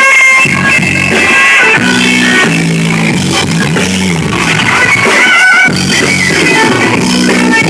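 Live rock band playing loudly, led by guitar over bass, with sustained and sliding notes.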